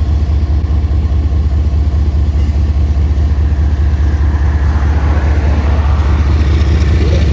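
Union Pacific diesel-electric locomotive rolling slowly past, its diesel engine a deep, steady drone. The sound grows a little louder and brighter over the last couple of seconds.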